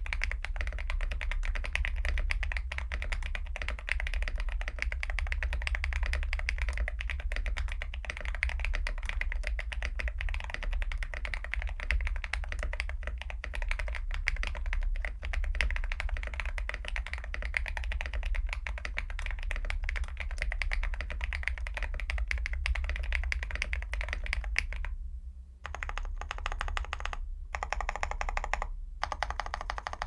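Fast, continuous typing on a Tiger80 Lite mechanical keyboard with a polypropylene plate, plate and case foam, and lubed tactile switches (Cherry housings with Long John stems) under PBT keycaps: a dense stream of key clacks. The typing breaks off briefly a few times near the end.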